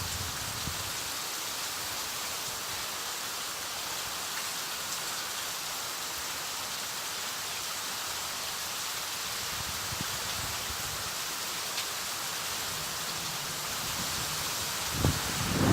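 Hurricane wind and heavy rain making a steady rushing noise, with a couple of loud low thumps near the end.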